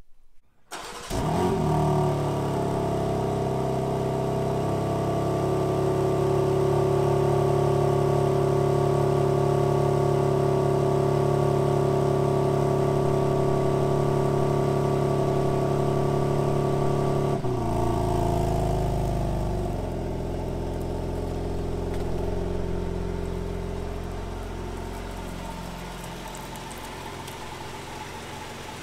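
BMW G80 M3's twin-turbo inline-six starting about a second in and idling steadily. About two-thirds of the way through the idle note drops abruptly, and after that the engine grows gradually quieter.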